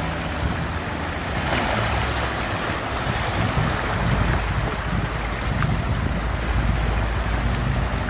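Shallow sea surf washing over a flat rock shelf: a steady rushing and fizzing of water, with a stronger surge about a second and a half in.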